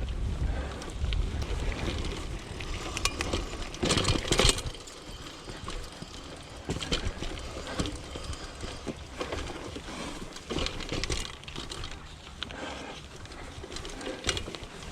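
Mountain bike being ridden over a bumpy trail: tyre noise with the frame and drivetrain rattling and knocking over bumps, the loudest clatter about four seconds in.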